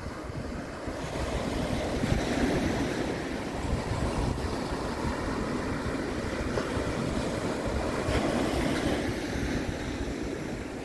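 Small waves breaking and washing up a sandy beach, with wind rumbling on the microphone. The surf swells about a second in and eases off near the end.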